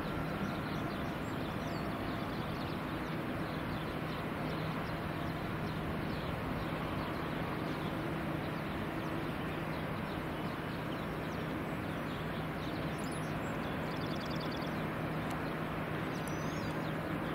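Steady outdoor background rumble with a low, even hum, and a few short bird chirps and a brief trill in the last few seconds.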